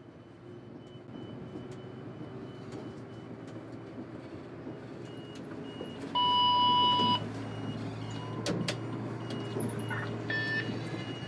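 City bus running and growing louder as it gets under way, heard from the driver's cab. Midway there is one loud electronic beep lasting about a second, and near the end a shorter, fainter beep.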